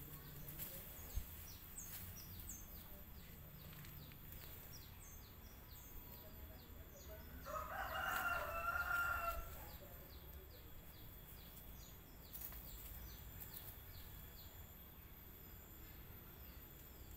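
A rooster crows once, about eight seconds in, the call lasting about two seconds, over a run of faint, quick, high-pitched chirps.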